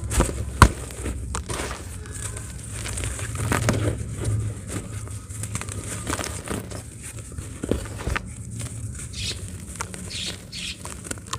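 Dry pure cement crumbling and breaking: irregular crackling, crunching and small clicks, with one sharp snap about half a second in.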